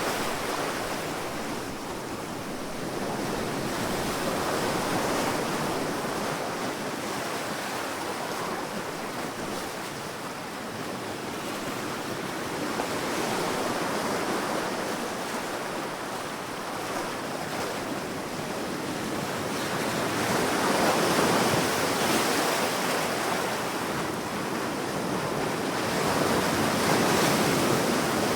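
Sea surf breaking and washing on a sandy beach: a steady rush of water that swells and eases every several seconds, with the biggest surges about three quarters of the way through and again near the end.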